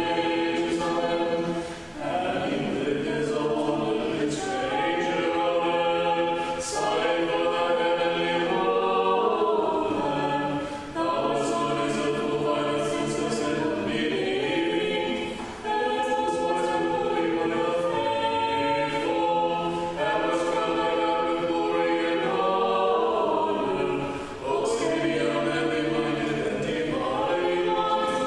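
Small choir singing unaccompanied Orthodox liturgical chant in long sustained phrases, with a short break for breath between phrases three or four times.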